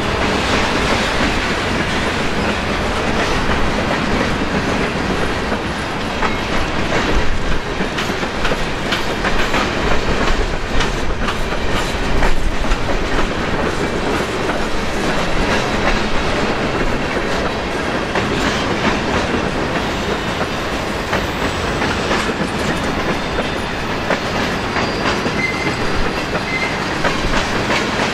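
Covered hopper cars of a long freight train rolling slowly past, steel wheels on the rails giving a steady rumble with scattered clicks and knocks. Wind buffets the microphone.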